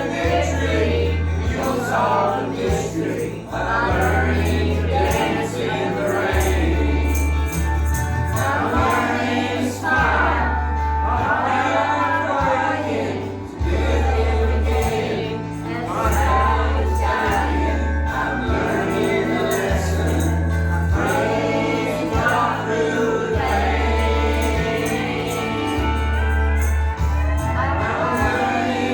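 Gospel song with singing over a steady bass line.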